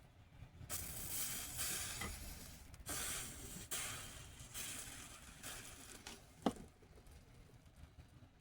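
A run of rasping, scraping strokes, each about a second long, then a single sharp click about six and a half seconds in.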